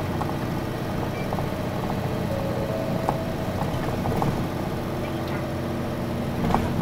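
Nissan Diesel Space Runner bus diesel engine heard from inside the cabin. A loud drone drops to a quieter, idle-like hum at the start. A few light clicks and brief faint tones come over it.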